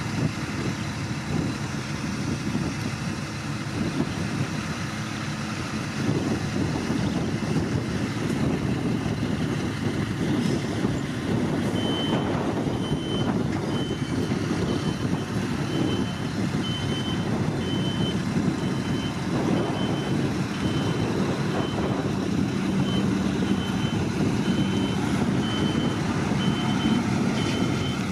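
Heavy truck diesel engine running steadily, growing louder about six seconds in. From about halfway through, a backup alarm beeps at an even pace.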